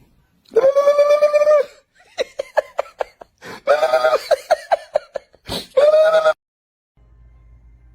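A high-pitched, childlike voice giving a long held call, then a run of quick laughing syllables and a chattering stretch, then another long call.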